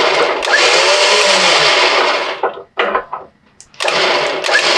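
Warn VR EVO 8-S electric winch, its motor and reduction gears running as it spools in its rope with no load, with a whine that rises and falls. It runs for about two seconds and winds down, gives a few short blips, pauses briefly, then starts up again near the end.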